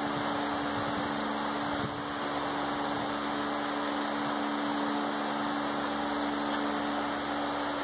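Steady fan-like whir with a constant low hum under it.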